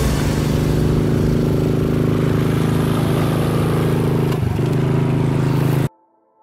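Motorcycle engine running at a steady pitch under way, over a hiss of wind and road noise. The engine note dips briefly about four and a half seconds in, then the sound cuts off abruptly near the end.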